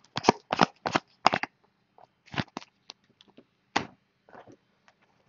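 2015 Topps Platinum football cards being flipped and slapped down one after another onto a stack: a quick run of sharp card slaps and flicks in the first second and a half, then a few scattered ones.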